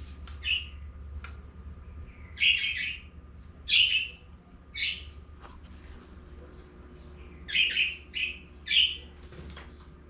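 A pet parrot giving short, loud calls, about seven in all: four spread over the first five seconds, then three in quick succession near the end.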